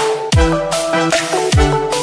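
Electronic background music with a beat of deep kick-drum hits that drop in pitch and a sustained synth melody over it.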